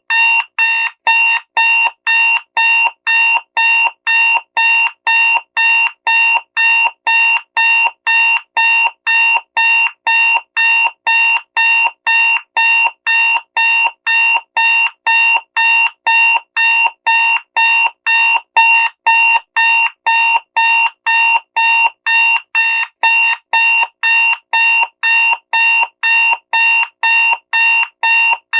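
Digital alarm clock beeping: short, identical high beeps repeating evenly, a little over two a second, without a break.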